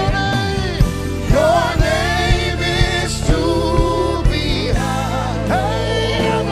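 Live gospel worship music: a sustained melodic lead with vibrato over held keyboard chords and bass, with a steady drum beat about twice a second.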